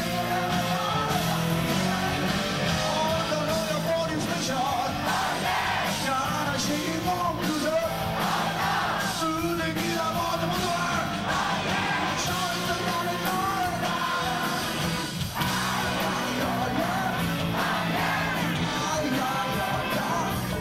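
A male rock singer sings live into a handheld microphone over a full rock band, his voice strained at times.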